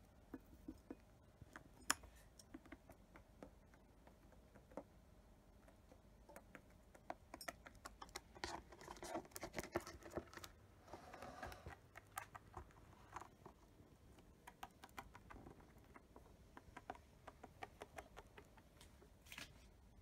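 A cockatiel pecking at seed in a ceramic dish and moving about on the tabletop: a faint scatter of small clicks and taps, busier with scratching and rustling around the middle.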